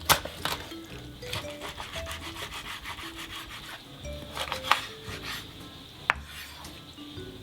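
A sharp knife sawing through raw salmon on a chopping board: repeated rasping strokes, with a few sharp knocks as the blade meets the board, at the start, about four and a half seconds in and near six seconds. Light jazz background music plays underneath.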